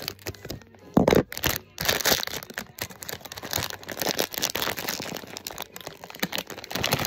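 Crinkly foil pouch being cut open with scissors and pulled apart, a dense irregular crackling and rustling, with a louder crunch about a second in.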